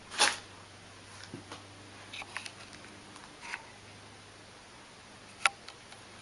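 Sparse light taps, clicks and soft scuffles of a husky and a ferret playing on a carpet: a short louder scuffle just after the start, then small scattered sounds, and a sharp click about five and a half seconds in.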